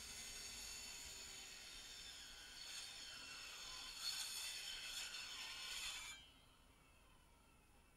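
Handheld electric power saw running with a steady high whine as it cuts along a wooden board, then cutting off suddenly about six seconds in.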